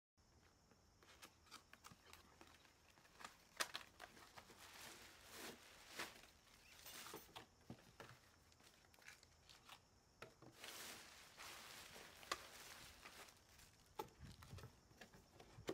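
Faint rustling and crinkling of packaging as a folded inflatable and its plastic bag are pulled out of a cardboard box, with scattered light knocks and taps.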